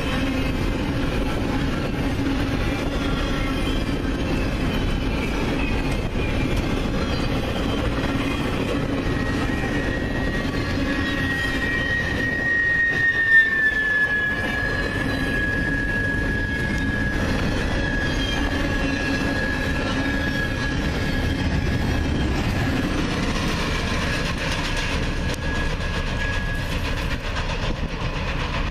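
Canadian Pacific double-stack intermodal container train passing close by, its wheels rumbling steadily on the rail. A high, thin, steady squeal joins about a third of the way in, drops slightly in pitch near the middle, and fades out near the end.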